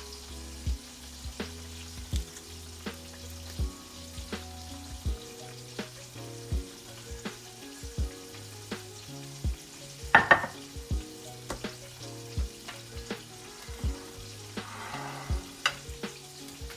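Background music with a steady beat and a stepping bassline, over a faint sizzle of chicken frying in oil. A sharp clatter about ten seconds in.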